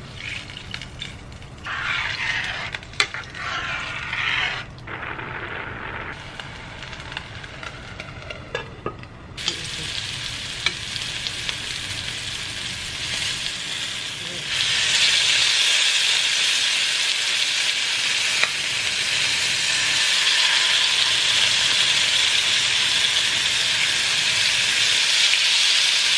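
A spoon stirring and scraping rice in a metal pot. Then chicken breasts sizzle in oil in a frying pan, a steady hiss that grows louder about halfway through, with a few clicks of tongs as the pieces are turned.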